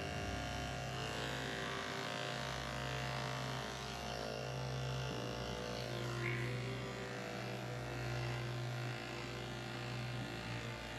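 Andis two-speed electric dog grooming clippers running with a steady hum as they shave a matted coat down to the skin.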